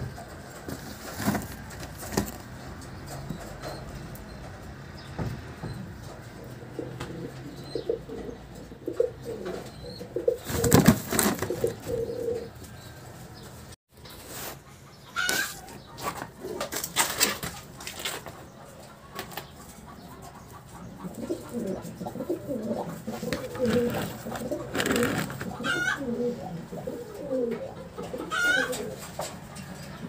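Four-week-old young pigeons cooing in low, wavering calls, with a few short rising squeaks and occasional wing flaps.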